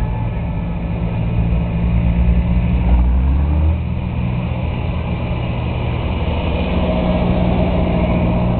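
Farm tractor engines running steadily, with a louder, deeper engine rumble that swells a few seconds in and falls away after about a second.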